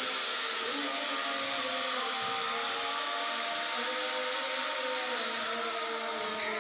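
Electric angle grinder running steadily while cutting, a continuous whine over a dense grinding noise.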